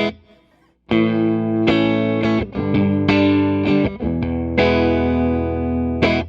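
Electric guitar played through a clean amp with no effects: a phrase of ringing chords, with several fresh attacks, that starts about a second in and stops suddenly near the end.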